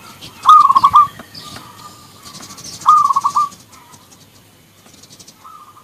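Zebra doves cooing back and forth: two loud stuttering coos about two seconds apart, each a short rising note breaking into a quick run of pulsed notes, with fainter coos from other doves answering around them.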